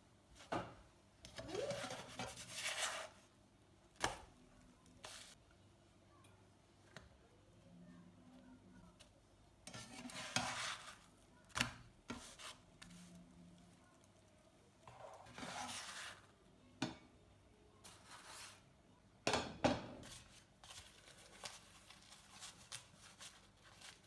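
Slotted spatula scraping and clicking against a non-stick frying pan as a flatbread is turned, in several short bouts with quiet gaps between them.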